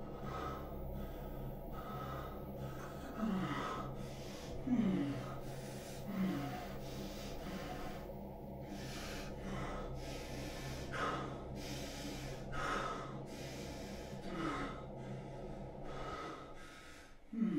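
A man gasping and retching with his head over a toilet bowl: repeated heaving breaths every second or two, over a steady low hum.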